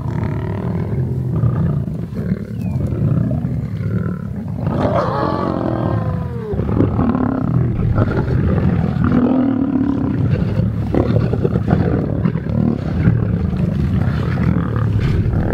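A pride of lions growling and snarling as they feed and squabble over a carcass: a continuous deep rumbling growl, with a louder snarl about five seconds in.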